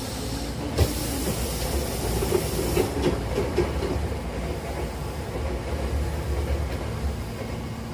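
Sliding doors of a Hankyu train car closing: a sharp clack about a second in, a hiss as the panels slide for about two seconds, and a few knocks as they meet and lock near three seconds. After that comes the car's steady low rumble.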